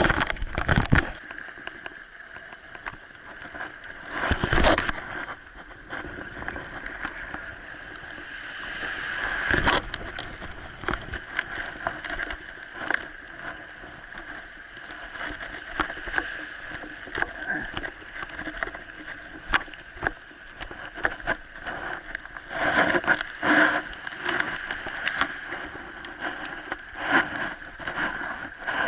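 Water sloshing and washing around the microphone, with many short clicks and knocks and a few louder bursts.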